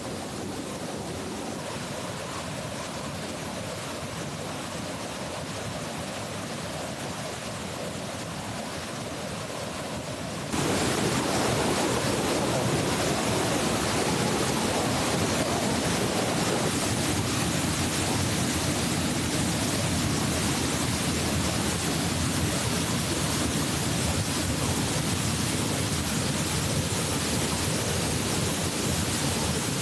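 Steady rushing roar of the Asama Ōtaki waterfall, becoming suddenly louder and fuller about ten seconds in.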